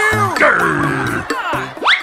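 Background music with a stepping bass line, overlaid with short sliding-pitch sound effects, including a quick rising glide near the end.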